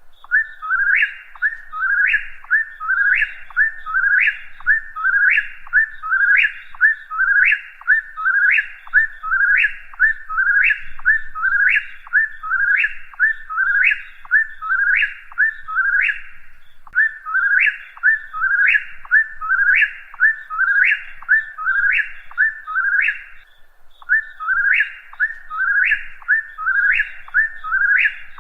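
Whip-poor-will singing its 'whip-poor-will' phrase over and over in a steady rhythm, each phrase ending in a rising sweep. There is a short pause about three-quarters of the way through.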